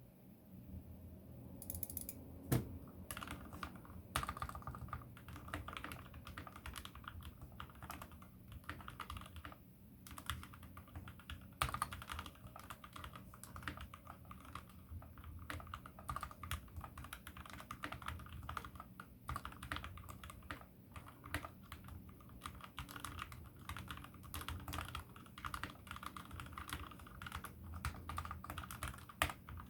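Typing on a Keychron K6 mechanical keyboard fitted with Razer PBT keycaps: a fast, continuous run of keystroke clicks, with a few heavier strokes standing out.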